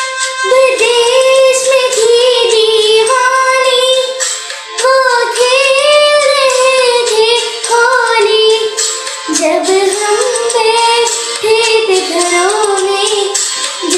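A young girl singing a melodic song in phrases, with an instrumental accompaniment of steady held tones underneath.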